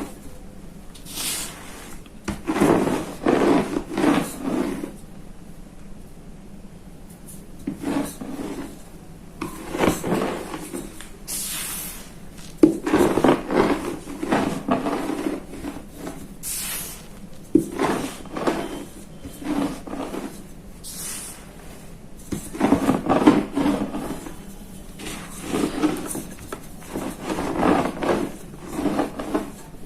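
Blocks of gym chalk crushed and crumbled under a rolling pin: gritty crunching and grinding in uneven bursts with short pauses between, and a few sharp crackles as pieces break.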